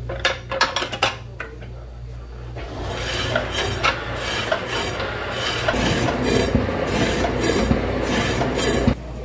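Dishes and metal cutlery clinking sharply as a restaurant table is set, then a rough hiss that builds over several seconds with more clinks in it and cuts off suddenly near the end.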